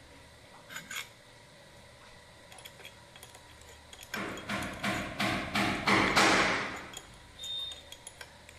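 A run of sharp metallic knocks and clinks from a hand tool working on a wood planer's blade and cutterhead while the blade is being set and tightened. Two light clicks come about a second in, and the main burst of about eight knocks comes a little after halfway.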